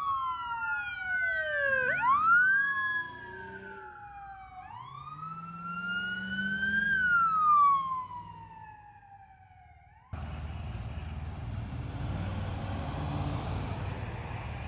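Sheriff's patrol car sirens wailing, their pitch sweeping up and down; two sirens overlap at first, then one carries on alone. About ten seconds in they cut off abruptly, giving way to steady outdoor background noise.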